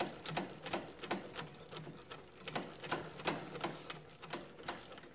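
Ratchet wrench clicking in short, irregular strokes as a fastener on a snowblower's carburetor is worked loose, several sharp clicks a second.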